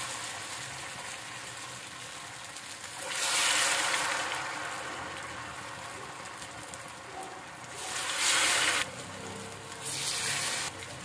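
Batter-coated potato wedges deep-frying in hot oil: a steady sizzling hiss that swells louder three times, as more wedges are dropped into the oil.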